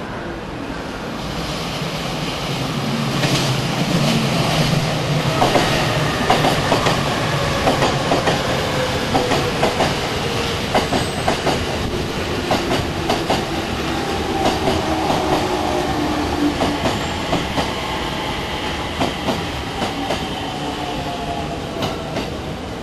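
JR Sobu Line local electric commuter train running past at close range, its wheels clacking over rail joints in quick irregular clicks. A whine from the traction motors falls steadily in pitch as the train slows.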